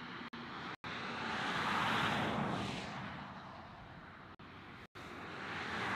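Steady outdoor rushing noise that slowly swells and fades, broken four times by split-second total audio dropouts from a choppy live stream.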